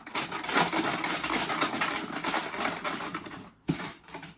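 Rattling and rustling of numbered draw entries being shaken and stirred in a container for about three seconds, then a single short rattle near the end.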